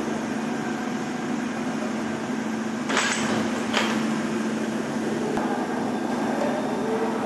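Workshop machinery running with a steady hum, and two short hissing bursts about three and four seconds in.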